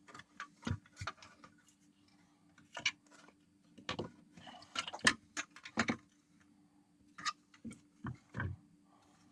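Irregular clicks and knocks of small hard objects being handled on a workbench, some with a duller thud, over a faint steady hum.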